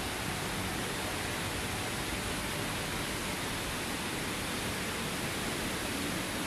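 Steady rush of river water flowing through a gorge, an even hiss with no breaks.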